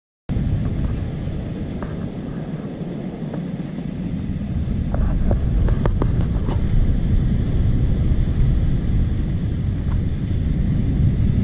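Wind buffeting the microphone over breaking ocean surf, a dense low rumble that cuts in abruptly and grows louder about four seconds in. A few faint clicks come near the middle.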